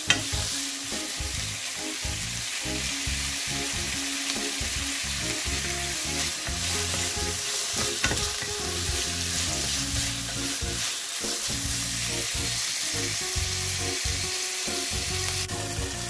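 Chicken pieces and sliced onion sizzling in hot oil in a nonstick frying pan while being stirred with a wooden spoon, the chicken browning. The spoon knocks against the pan once at the start and again about eight seconds in.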